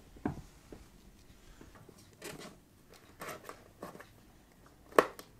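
Kittens' paws scrabbling and batting on a cardboard box, with scratchy rustles and a few sharp knocks. The loudest knock comes near the end.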